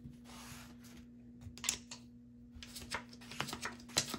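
Playing cards and clay casino chips handled on a felt blackjack table: a soft swish as cards are swept up, then a run of light clicks and taps as chips are moved and new cards are dealt, busiest near the end.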